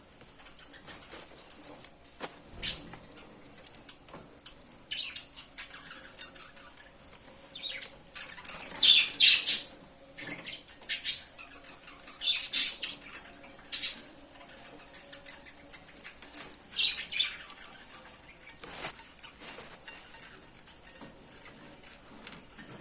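A lovebird flapping and fluttering its wings in short, irregular bursts, a dozen or so times, loudest between about nine and fourteen seconds in.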